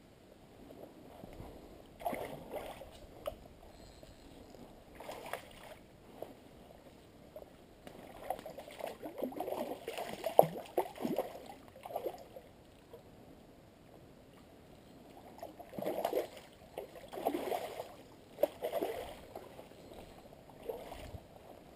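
Hooked trout thrashing at the surface of a shallow creek, splashing in irregular bursts. The splashes are heaviest about halfway through and again in the last few seconds.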